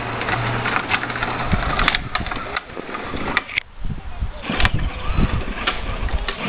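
Battery-powered ride-on toy Jeep driving, its small electric motor and gearbox whirring steadily for the first second or so, with hard plastic wheels crackling and rattling over gritty ground.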